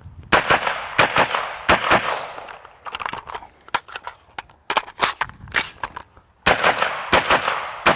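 A 5.56 mm direct-impingement AR-15 carbine (LWRC M6IC-DI) fired semi-automatically in quick strings. Three shots come a little under a second apart, then strings of about three shots a second follow, each shot with a short echo.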